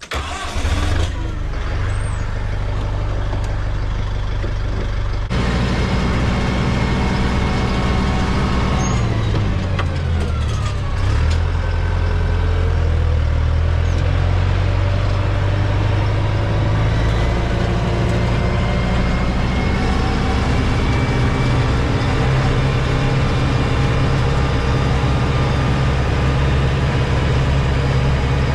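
Farm tractor engine running steadily under load. Its engine speed dips and comes back up about ten seconds in.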